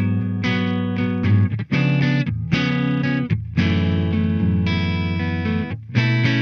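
Tokai Love Rock LS-136F electric guitar with PAF-style humbucker pickups, played through a clean tone: a run of full chords that ring out, with short breaks between the changes.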